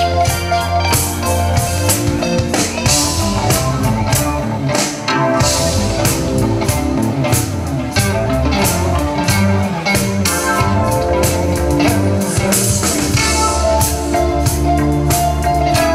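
Live band playing an instrumental passage: guitar over a steady drum beat, with no vocals.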